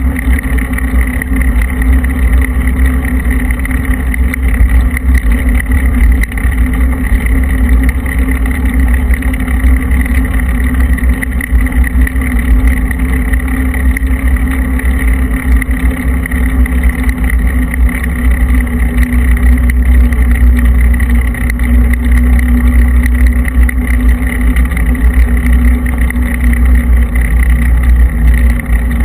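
Steady, loud wind rush and road rumble on the microphone of a handlebar-mounted camera moving along a rough new road surface, with a constant hum underneath.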